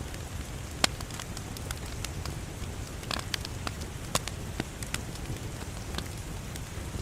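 Wood fire burning in a fireplace: irregular sharp crackles and pops over a steady low rush of flame. The loudest pop comes just under a second in.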